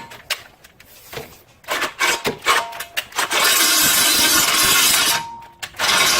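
Power drill with a step (Unibit) bit boring a half-inch hole through metal, running steadily for about two seconds midway, after a few clicks and knocks.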